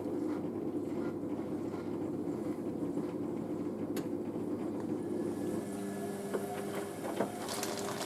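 Dometic WMD1050 compact front-loading washing machine in its wash cycle: the motor hums steadily as the drum tumbles a small load of wet laundry. About five and a half seconds in, the hum settles into a steadier tone. There is a sharp click about four seconds in and a few clicks and knocks near the end.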